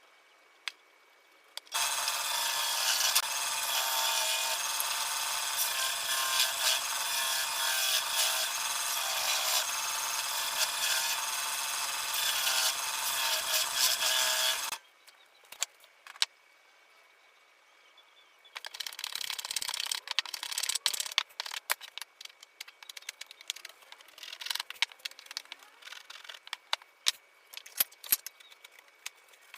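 Sped-up woodworking on a wooden shutter: a long stretch of steady rasping tool noise like sawing or sanding, then a pause. After it come a shorter burst of the same noise and many scattered light knocks and clicks of wood being worked and handled.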